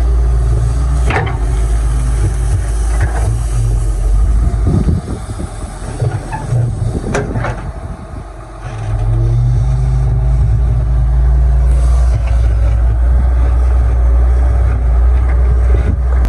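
Diesel excavator engine running under load, its level dropping for a few seconds near the middle and then coming back up. A few sharp knocks sound over it.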